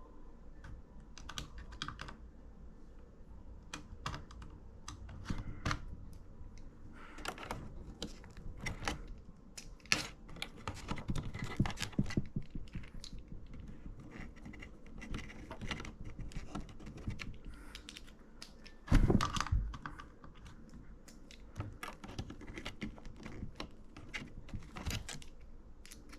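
Typing on a computer keyboard: irregular runs of key clicks, with a short louder clatter about nineteen seconds in.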